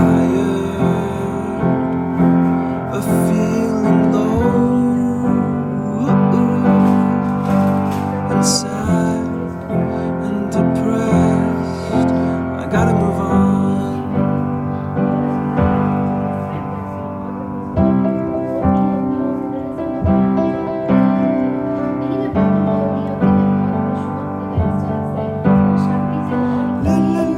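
Background music: a slow, piano-led pop song in an instrumental stretch between sung verses.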